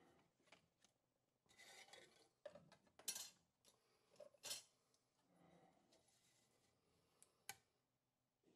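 Faint paper handling: a sheet of paper rustling in the hands and being laid flat on a table, with a few sharp taps along the way. Near the end, a steel ruler and craft knife are set down on the paper.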